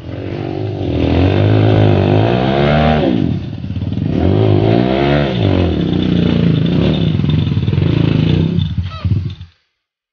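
Off-road dirt bike engine revving up and down under load on a slippery, rutted clay climb, with two big rises and falls in pitch in the first half and steady running after. The sound cuts off suddenly near the end.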